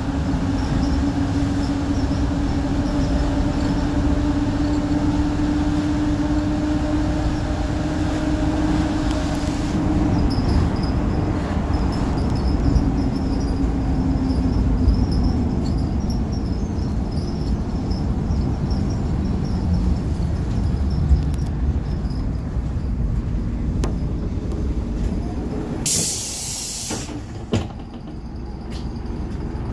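Optare Solo single-deck bus's diesel engine and drivetrain heard from inside the saloon while driving: a whine creeps slowly up in pitch for the first ten seconds as it gathers speed, then steady running with road noise. Near the end the bus slows and stops, and there is a short loud burst of compressed-air hiss.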